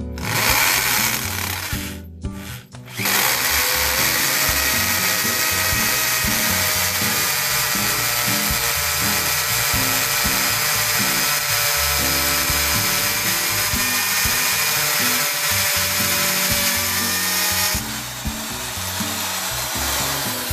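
Corded hammer drill boring into brick with a masonry bit. A short burst, a brief stop about two seconds in, then a long steady run with a high motor whine that rises as the drill spins up. The sound changes and gets quieter near the end.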